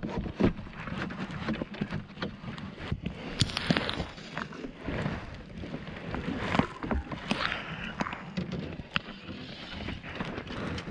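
Gear being handled and readied: irregular clicks, knocks and rustling.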